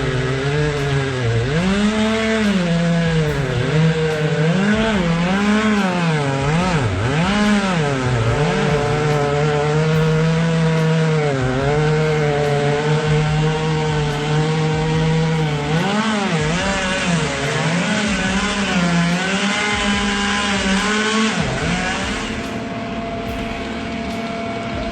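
Two-stroke chainsaw engine running, its pitch rising and falling over and over as the throttle is worked. It steadies into a lower, even sound near the end.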